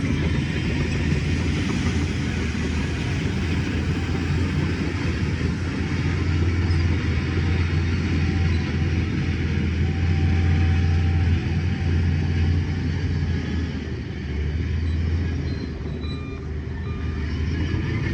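Heavy diesel earthmoving machinery running steadily under load with a deep engine drone; short faint beeps come in near the end.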